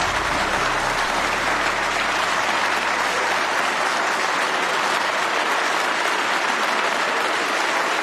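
Large crowd of parliament members applauding, a dense, steady clapping that holds without a break.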